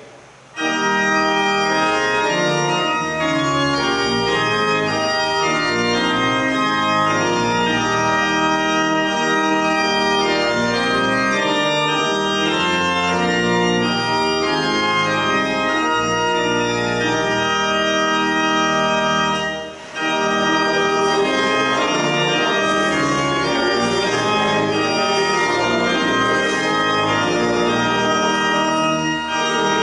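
Church organ playing slow, held chords, with a short break about twenty seconds in before it resumes.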